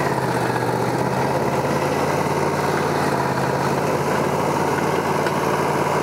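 Wood-Mizer LT40 portable sawmill's engine idling, with a steady, unchanging pitch.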